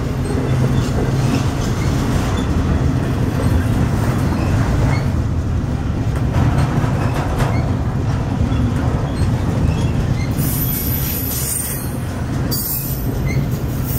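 Steady rumble of a double-stack intermodal freight train's loaded well cars rolling past on the rails, with a faint high-pitched wheel squeal from about ten seconds in.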